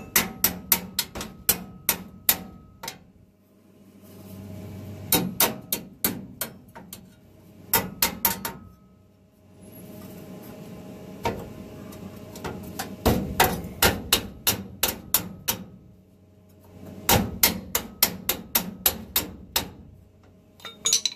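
Hand hammer tapping on steel in quick runs of sharp taps, about four or five a second, with short pauses between runs: knocking a new steel piece into line on the VW bus underbody during fit-up before tack welding.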